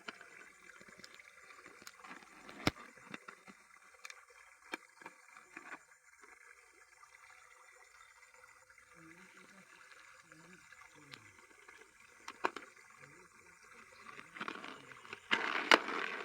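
Water sloshing and splashing with scattered sharp knocks, and a louder burst of splashing near the end.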